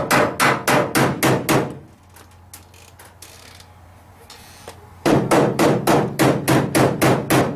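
Hammer striking sheet metal in quick, even blows, about four or five a second, straightening a car's rear quarter panel. The blows stop for about three seconds, then resume at the same pace.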